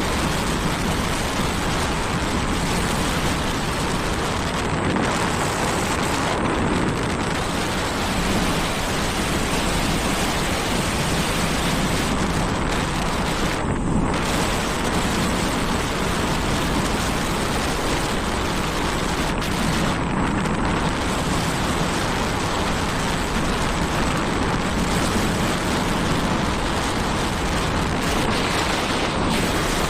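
Steady, loud rushing of wind buffeting the microphone on a moving vehicle, a rumble that doesn't let up.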